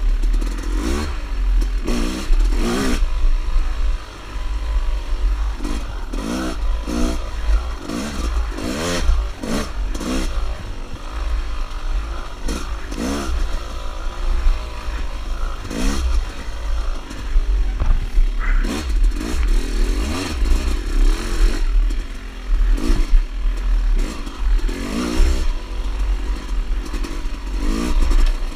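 Dirt bike engine revving up and down over and over as the throttle is worked, its pitch rising and falling about once a second. Sharp clattering knocks come through at many points, over a constant low rumble.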